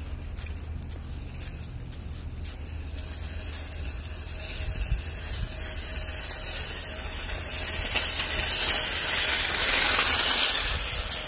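Jingling and rustling from a shopping bag carried by someone walking, over a steady low rumble. A broad hiss swells over the last few seconds.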